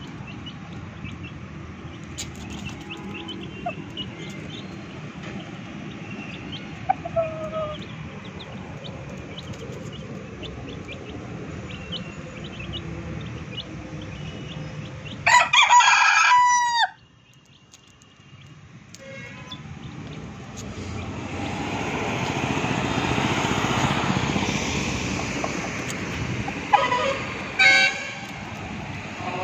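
White rooster crowing once, loud, about halfway through, with a second shorter call near the end. Small high peeps come and go in the first part. Later a broad rushing noise swells and fades, like road traffic passing.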